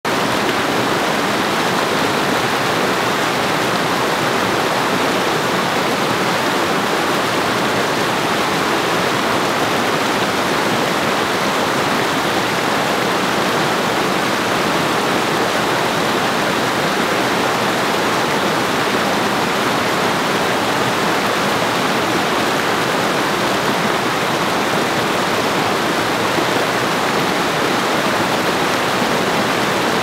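Waterfall cascading over rock slabs: fast white water rushing steadily and evenly, with no breaks.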